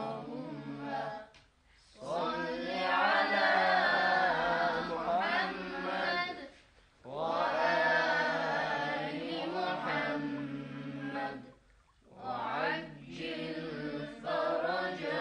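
Unaccompanied male chanting in long, wavering melodic phrases, four of them separated by short breaths.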